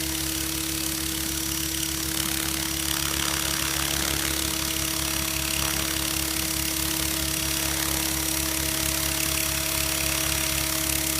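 Goblin 500 Sport's engine running steadily at idle, with a constant steady hum over it: the strange noise the owner is showing.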